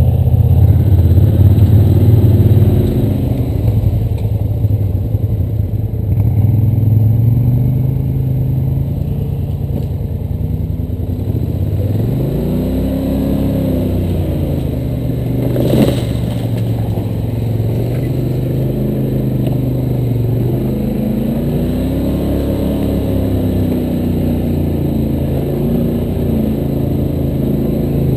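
ATV engine running under a rider on a rough trail, its pitch rising and falling as the throttle is opened and eased, with a single sharp knock about halfway through.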